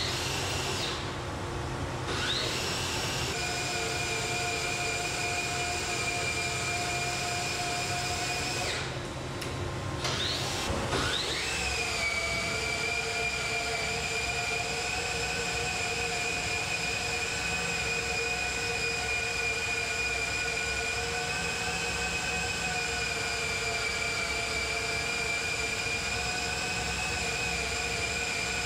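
Electric motor whine with several steady high tones over a low hum. It spins up with a rising pitch near the start, drops out briefly about nine seconds in, and spins up again.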